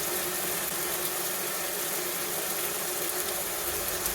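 Chopped tomatoes and onions sizzling steadily in oil in a cooking pot, over a faint steady hum.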